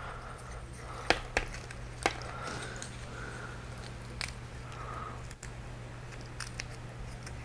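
Brush scrubbing old grease off a plastic RC differential and gearbox casing in methylated spirits, in short strokes, with a few sharp clicks between one and two seconds in and another just after four seconds.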